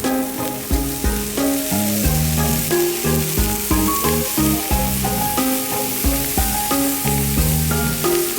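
Fried rice sizzling and frying in a pan, with a steady hiss and some stirring. Background music with a melody and bass line plays throughout.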